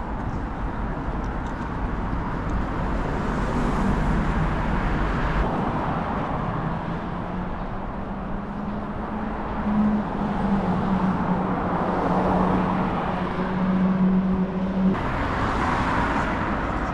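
City street traffic: motor vehicles running and passing, with a steady engine hum through most of it that stops near the end.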